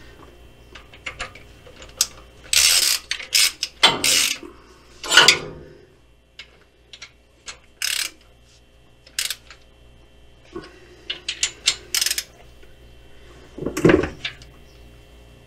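Socket ratchet on a long extension clicking in short bursts, with pauses and a few louder clatters, as the nuts on an engine's rear main bearing cap are run down by hand before torquing.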